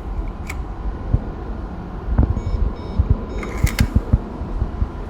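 Car park pay station's card reader giving two short electronic beeps as a card is tapped, among low handling knocks and clicks.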